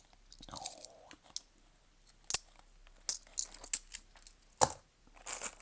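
10p coins clicking and clinking against each other as they are handled and sorted, in scattered sharp clicks, the loudest about two and a half seconds in.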